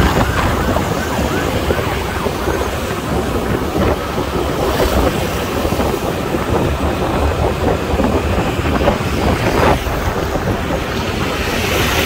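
Wind rushing over the microphone of a rider on a moving motor scooter, over the steady drone of the scooter and the surrounding road traffic.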